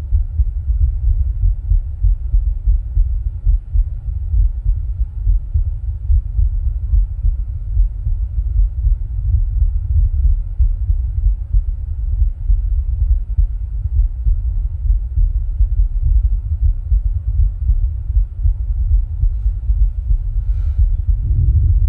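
A person's heart sounds: deep, muffled heartbeats repeating in a steady, even rhythm.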